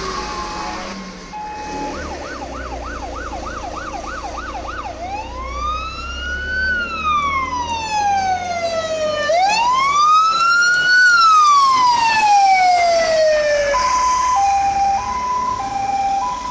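Fire engine siren on an emergency run. It starts with a fast yelp of about three sweeps a second, changes to two slow rising-and-falling wails, and switches near the end to a two-tone hi-lo, with the truck's engine running beneath.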